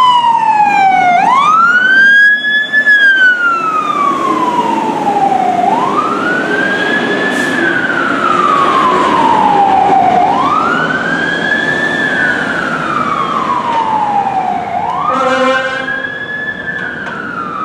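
Fire truck siren wailing, its pitch climbing quickly and then falling slowly about every four and a half seconds. A short horn blast sounds near the end.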